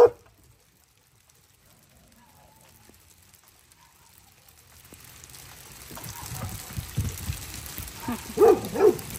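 Hail pattering on a wooden deck, faint at first and building from about five seconds in. A dog barks at the very start and twice near the end.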